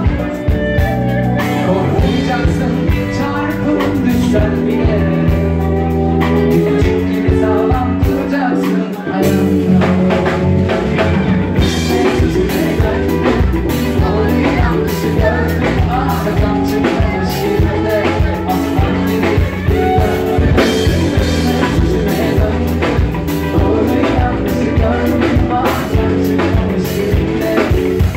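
A band playing music with singing and a steady drum beat.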